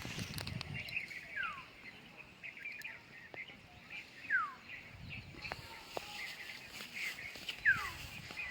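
A bird giving a short downward whistle three times, about three seconds apart, over faint continuous chirping of other birds.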